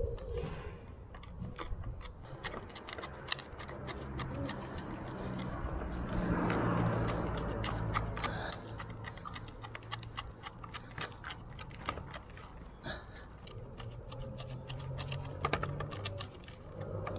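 Wooden stick stirring and scraping two-part epoxy putty on a cardboard card, a rapid irregular run of small clicks and scrapes. A low rumble swells under it about six seconds in.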